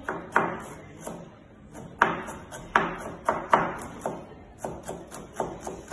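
Knife chopping red onion on a plastic cutting board: about fifteen sharp, unevenly spaced knocks of the blade on the board, the loudest about two seconds in.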